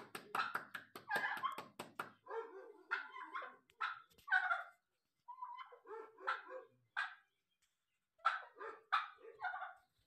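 Short yelping animal calls in quick bursts, one after another, with a fast clicking rattle under the calls in the first two seconds.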